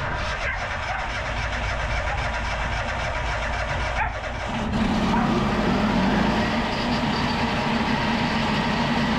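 Petrol engine of a log-cutting saw running steadily. It starts abruptly and gets louder and heavier about five seconds in.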